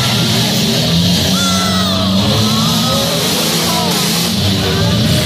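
Loud music with a singer playing over the arena loudspeakers, with derby car engines running steadily underneath.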